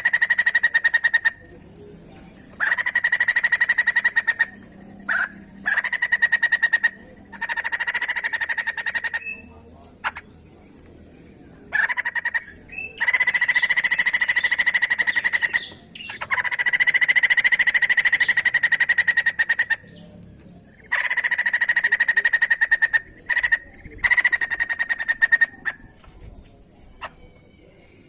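White-crested laughingthrush giving loud, harsh, rapidly pulsed chattering calls in repeated bursts of one to three seconds, with short pauses between them.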